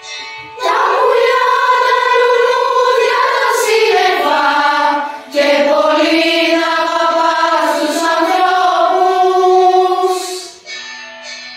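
A choir singing long held notes in two phrases, starting about half a second in, with a short break near the middle, then stopping shortly before the end. Quieter instrumental music plays at the start and returns at the end.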